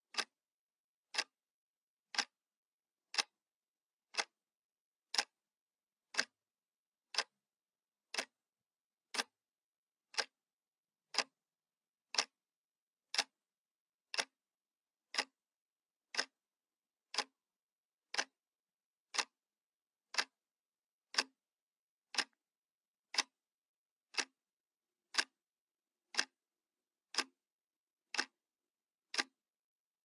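Clock ticking steadily, one sharp tick a second, with silence between the ticks.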